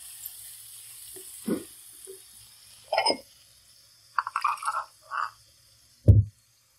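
Spiced onion-tomato masala frying in oil in a wok while being bhuna'd: a faint steady sizzle with a couple of spatula scrapes and knocks, then a few short wet pops from the thick bubbling masala, and one dull knock near the end.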